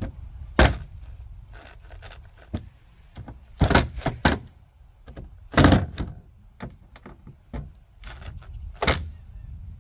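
Hand screwdriver working screws into a deck plate on a fiberglass boat deck: a series of separate sharp clicks and knocks a second or more apart, the loudest about four and six seconds in, as the screws are snugged down.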